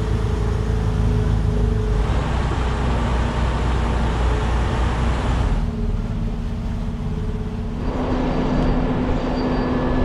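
Heavy diesel engine of a log truck running steadily, a continuous low hum whose tone shifts abruptly a few times.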